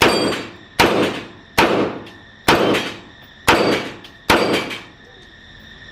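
Six gunshots fired one after another at a steady pace, about one a second, each with a short echoing tail.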